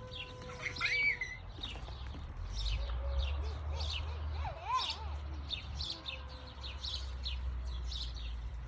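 Small birds chirping: many quick, high chirps repeating throughout, with a few sliding whistled notes, over a steady low rumble.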